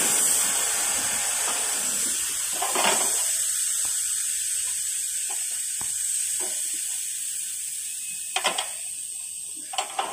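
Steady hiss of compressed air at a pneumatic tyre-changing machine while an off-road tyre is fitted to its rim, with a few light clicks near the end.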